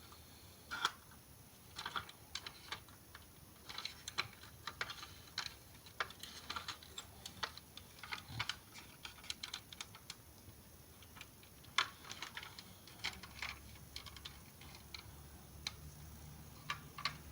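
Light, irregular clicks and taps as the doors, bonnet and boot of a toy Mercedes GLS model car are opened and snapped shut by hand.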